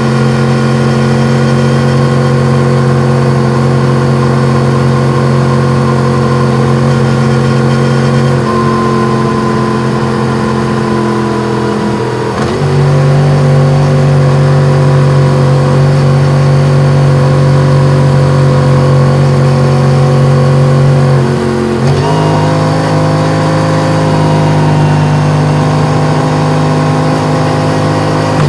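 Yamaha MT-10's crossplane inline-four engine with an Akrapovic exhaust, running at steady riding revs with a slowly sagging note that steps up about twelve seconds in and again about twenty-two seconds in.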